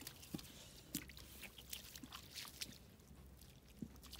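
Faint, irregular wet squelches and small clicks of bare feet stepping through mud and shallow water.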